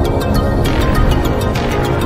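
Background music with a steady beat of quick, evenly spaced ticks over sustained tones.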